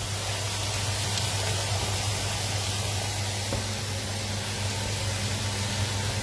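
Steady hiss of food cooking on an electric hob, with pasta boiling and broccoli heating in a frying pan, over a low steady hum.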